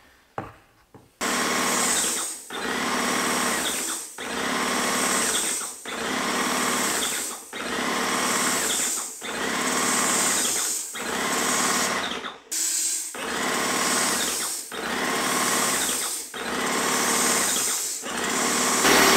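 Airless paint sprayer's pump motor running under load, pulsing regularly about every second and a half to two seconds, while the gun jets leftover paint from the hose back into the paint tin. It cuts out briefly about two-thirds of the way through.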